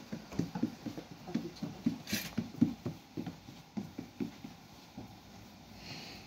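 Hands patting and pressing soft dough flat on a floured cloth: a run of soft, irregular thuds that thin out after about four seconds, with a brief hiss about two seconds in.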